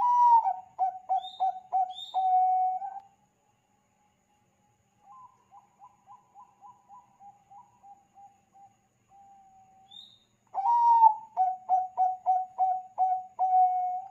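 Zebra dove (Bangkok-bred perkutut) singing its cooing song. Two loud phrases of quick staccato coos, each opening on a higher note and ending on a longer held coo, with a softer run of coos between them.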